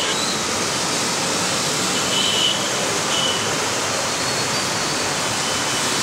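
Steady rushing, hissing water noise of traffic driving through a flooded road, tyres throwing up spray. Faint short high tones sound briefly about two seconds in and again just after three seconds.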